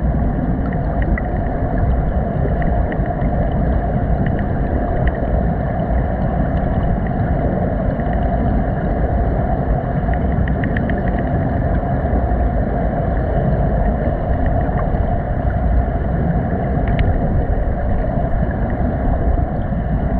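Steady underwater rumble and rushing noise picked up by the submerged camera, with a few faint clicks scattered through it.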